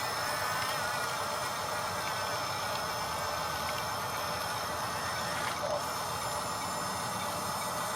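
Small electric motors and gearboxes of a radio-controlled construction model running steadily: an even mechanical whirr with a faint high whine.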